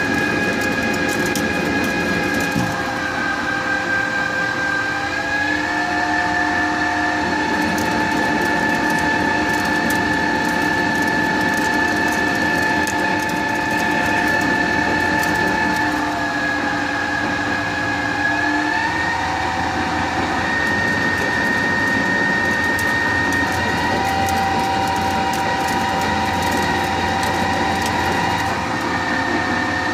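Chinese-made CNC lathe running a G71 roughing cycle on bar stock: several steady whines from the machine shift in pitch a few times over a constant running noise.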